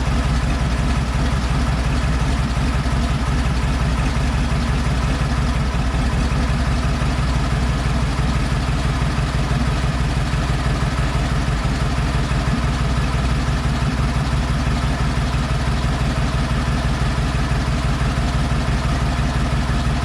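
Nissan TD42T turbo-diesel straight-six idling steadily with its freshly rebuilt bottom end.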